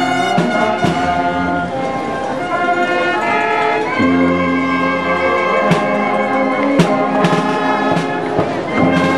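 Brass band playing a slow procession march in long held chords, with a couple of sharp hits about two-thirds of the way through.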